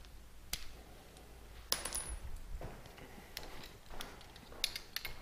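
Steel hand tools (a socket, extension and ratchet) clinking and clicking as they are handled and fitted together: a few scattered light metallic clicks, one with a brief high ring about a second and a half in.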